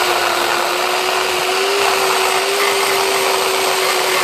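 Electric chainsaw with a 14-inch bar ripping lengthwise through a cedar log, its motor holding a steady whine under the hiss of the chain cutting wood. The saw is in a slow plunge-cut rip, worked with no more than its own weight.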